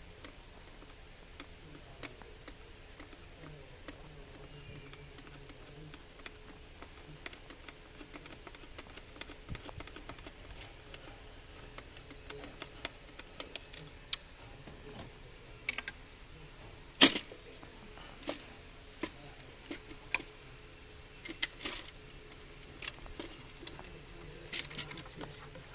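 Hand work in a car's engine bay: scattered light clicks and metallic clinks of parts and tools being handled, sparse at first and busier later, with one sharp, louder click about two thirds of the way through.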